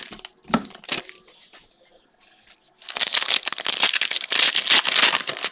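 Foil trading-card pack wrapper being torn open and crinkled by hand: two short crackles in the first second, then a long stretch of dense crinkling from about three seconds in.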